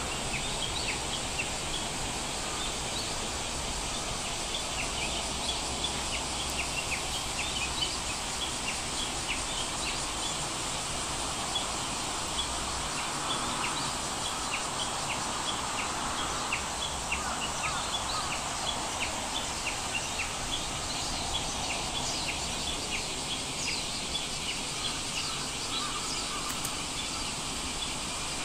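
Many short, high, bird-like chirps, several a second, over a steady background hiss.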